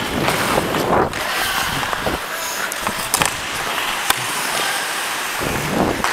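Ice hockey skate blades scraping and carving the ice in strides, with swooshing surges near the start and again near the end, and a few sharp clacks about three and four seconds in.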